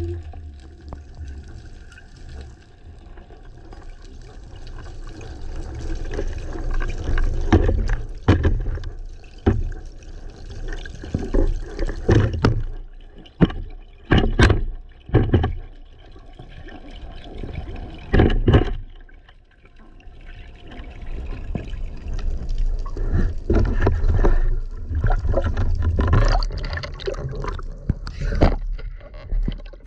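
Underwater water noise against a camera on a speargun as a freediver swims up toward the surface: gurgling and rushing water in irregular swishing surges.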